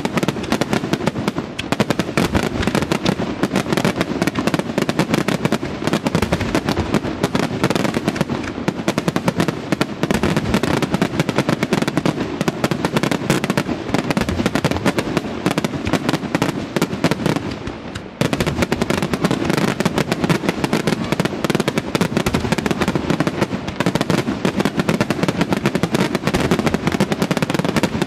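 Professional aerial fireworks display: a dense, continuous barrage of shell bursts and crackling reports, the bangs coming too fast to count. It dips briefly about eighteen seconds in, then resumes at full strength.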